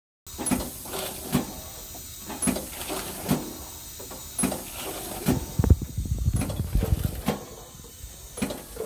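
Air-driven fixed-length cutting machine cycling as it cuts long green onions into set lengths, with a sharp knock about once a second as the blade mechanism strokes and a hiss of compressed air between strokes. One louder, deeper knock comes a little past the middle.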